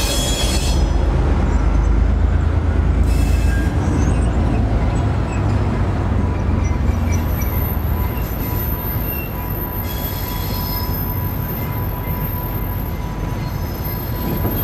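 Railway wagon wheels squealing on yard track in short bursts, near the start, about three seconds in and again around ten seconds, over a low rumble of moving rolling stock that eases off about halfway. A faint steady whine comes in about halfway through.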